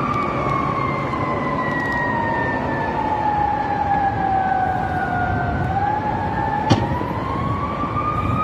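Emergency vehicle siren sounding a slow wail: its pitch falls steadily for about five seconds, then climbs again, over steady city traffic noise. A single sharp click comes about two-thirds of the way through.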